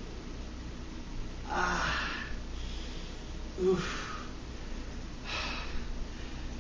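A man's breathy groans and heavy exhalations, three of them a second or two apart, some with a short voiced moan, as he suffers stomach cramps.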